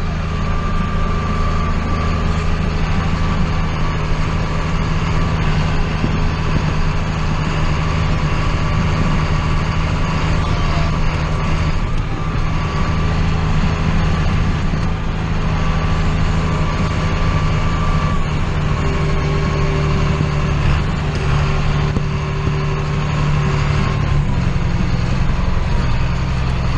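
John Deere 4055 tractor's diesel engine running steadily under way, a deep even hum with a faint high whine over it.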